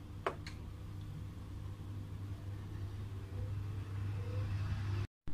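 Philips air fryer running: a steady fan whir over a low electrical hum, with a single click from its control knob being pressed just after the start.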